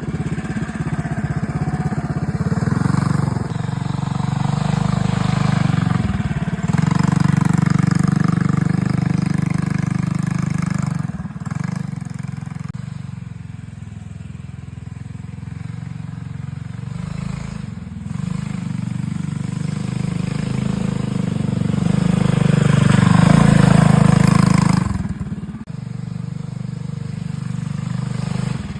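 Minibike's 212cc Predator Ghost single-cylinder OHV engine with a Stage 2 exhaust, running under changing throttle on a ride. It drops off briefly several times, eases down through the middle, then climbs to its loudest a few seconds before the end.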